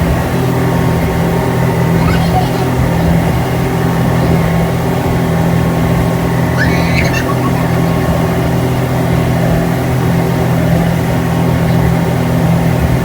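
Speedboat engine running at a steady, unchanging drone, with brief higher sounds about two and seven seconds in.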